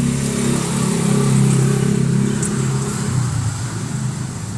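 An engine running with a steady, even hum that fades somewhat after about three seconds.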